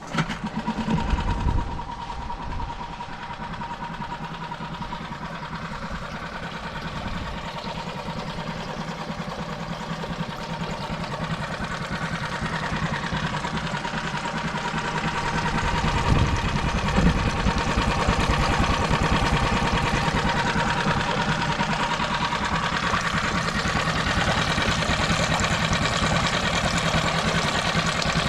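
Mariner 6hp four-stroke single-cylinder outboard motor starting, louder for the first second or so, then running steadily at low speed with its level rising slowly.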